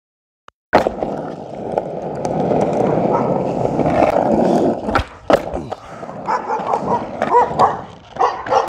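After a brief silent gap, skateboard wheels roll steadily on asphalt for about four seconds, then the board clacks sharply twice about five seconds in. Dogs then bark repeatedly toward the end.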